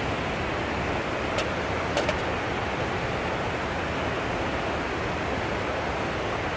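Mountain stream rushing steadily over rocks, with a few light clicks about a second and a half and two seconds in.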